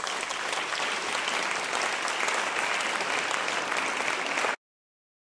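Audience applauding steadily, a dense patter of many hands clapping, which cuts off abruptly about four and a half seconds in.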